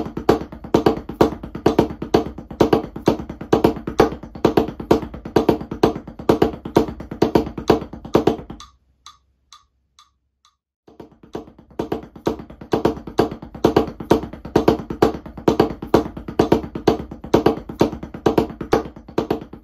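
Drumsticks playing a fast, accented sixteenth-note paradiddle and single-stroke pattern on a practice pad over a musical backing track. It breaks off for about two seconds near the middle, leaving only a few faint clicks, then rhythmic percussive music starts up again.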